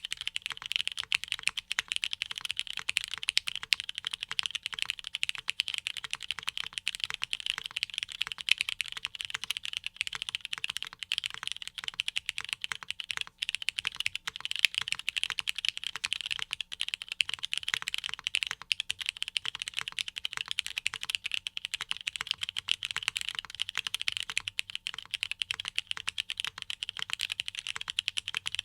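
Continuous typing on a Neo80 Cu mechanical keyboard built plateless on a poron gasket mount, with factory-lubed Cherry MX2A Blossom linear switches and GMK keycaps: a dense, unbroken run of keystrokes, with the raw scratch of the Cherry switches.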